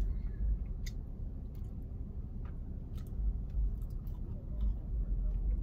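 Crunching and chewing of hard, oven-baked cornstarch chunks: scattered sharp little crunches every half second or so, over a steady low rumble.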